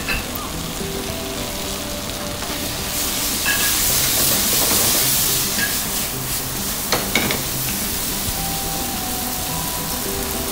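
Chicken and vegetables sizzling in a hot wok as sauce is mixed in and the wok is tossed. The sizzle swells from about three seconds in until about six seconds, with a few light knocks near seven seconds.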